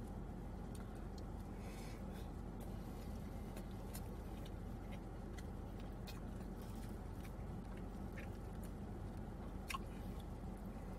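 Faint close-up chewing of a mouthful of curry goat, rice and cabbage, with scattered small clicks, over a steady low hum inside a car.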